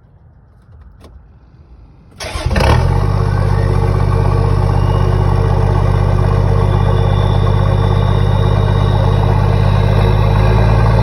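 Toyota 80 Series Land Cruiser's 1HD-T 4.2 litre straight-six turbo diesel starting about two seconds in, catching almost at once after a click, then settling into a steady idle through a 3 inch exhaust, with a faint high turbo whistle over it.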